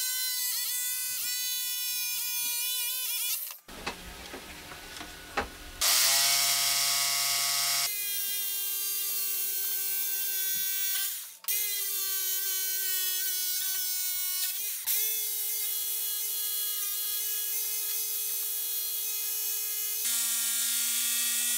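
Electric jigsaw running and cutting pine board, its motor whining at a steady pitch. The pitch and noise change abruptly several times along the way.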